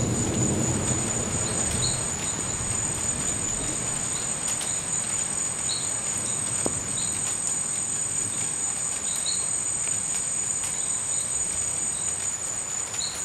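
Steady, high-pitched night chorus of crickets, with occasional short chirps over it. A low rumble of thunder dies away in the first couple of seconds.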